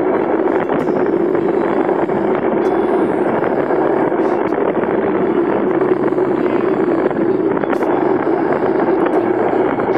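Steady rush of wind buffeting the microphone of a camera riding on a mountain bike down a dirt trail, with a few faint clicks from the bike.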